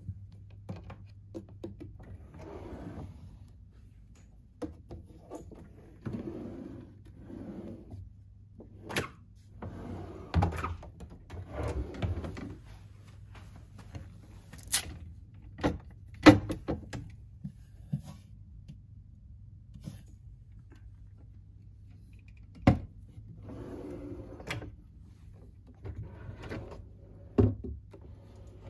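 Drawers of a glossy wooden cabinet being slid open and shut by hand, each slide a brief rushing scrape, with scattered sharp knocks and thunks as they hit their stops and panels are touched. A steady low hum runs underneath.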